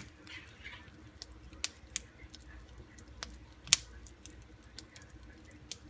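Freshly microwaved pork rinds crackling inside their bag: a handful of sharp, scattered snaps, irregularly spaced, as the puffed rinds keep popping.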